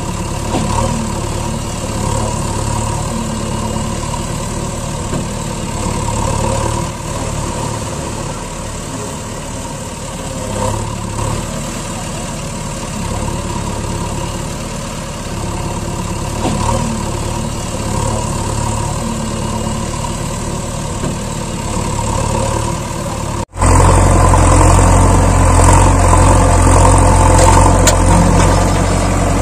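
Heavy vehicle engine sound running steadily, laid over the toy footage. About 23 seconds in it cuts abruptly to a louder, deeper engine sound.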